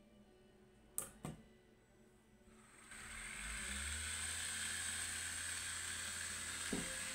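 A small switch on the circuit board clicks twice, then about three seconds in a steady hiss with a low hum and a thin high whine comes up and holds as the transistor module is switched on and drives the LED lamps under load. A single click sounds near the end.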